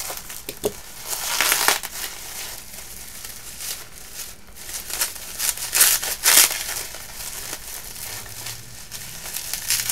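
Plastic packaging crinkling and rustling as it is cut and pulled open, with louder bursts of rustling about a second and a half in and again around six seconds in.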